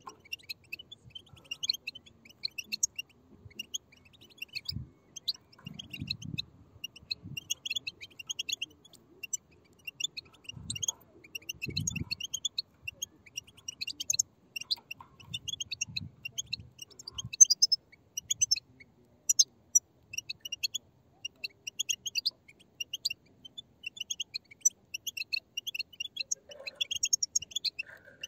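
A group of European goldfinch chicks chirping together: dense, rapid, high-pitched twittering begging calls. There are faint low thuds underneath in the first half.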